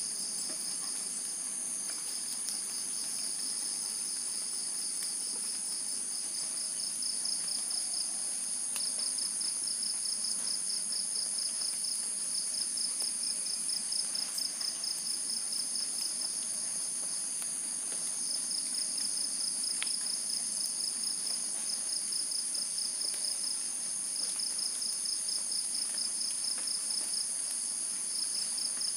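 Night insect chorus: a steady high-pitched trill over a second trill that pulses rapidly and breaks off now and then, with a few faint clicks.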